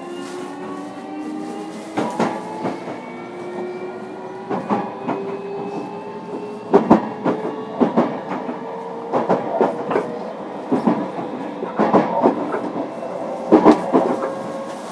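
Toshiba VVVF inverter and permanent-magnet synchronous traction motors of a JR Kyushu 305 series EMU motor car, heard from inside the car: a whine of several tones rising slowly in pitch as the train accelerates. Wheels clack over rail joints in pairs, more and more often toward the end.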